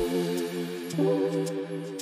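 Background music: a held, chant-like chord that changes about a second in, with faint light ticks over it.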